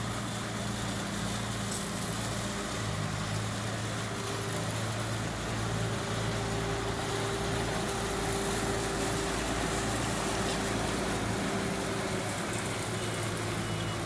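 Diesel engines of an asphalt paver and a small tandem road roller running steadily, the paver's engine growing a little louder about halfway through.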